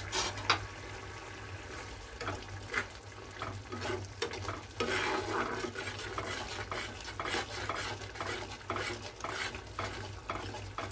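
Metal spatula stirring and scraping through a bubbling curry gravy in a kadai, in irregular strokes over a bubbling sizzle. A steady low hum runs underneath.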